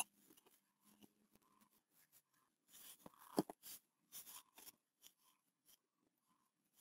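Faint food-handling sounds: soft clicks and short rustles as burger fillings and pickle slices are laid onto a bun on a wooden cutting board, with a sharp click at the start and a louder knock about three and a half seconds in.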